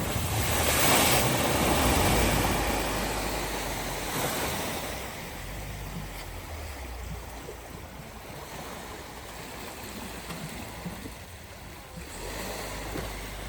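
A vehicle driving through deep flood water at a ford, the water surging and splashing. It is loudest in the first three seconds, then dies down to a steady rushing wash, with another small surge near the end.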